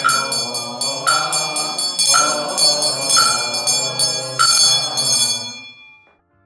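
Ritual hand bell rung in quick, even shakes, about four a second, with a stronger stroke roughly once a second, over chanting voices. It fades away near the end.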